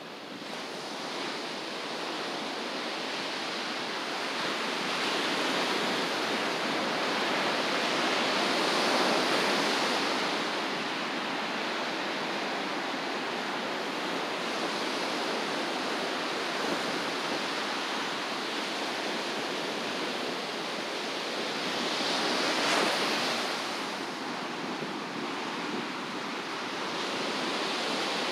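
Ocean surf breaking and washing up the beach, a steady rush that swells louder twice, about a third of the way in and again near the end.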